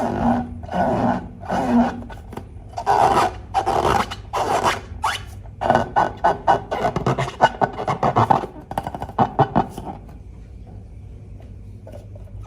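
Irregular rubbing, scraping and squishing strokes from slime and balloons being worked by hand. They die away about ten seconds in, leaving a faint low hum.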